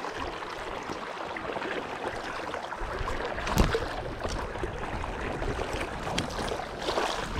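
River water rushing and splashing as a hooked brown trout thrashes at the surface in the shallows. A sharper hit stands out about three and a half seconds in.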